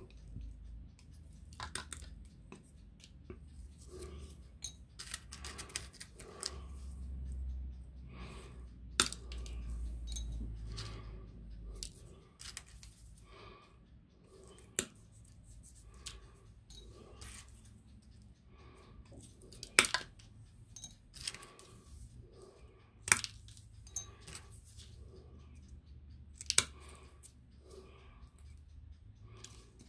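Diagonal side cutters snipping the heads off wooden matchsticks: a run of crisp clicks, with several much louder, sharp snips spread through the second half.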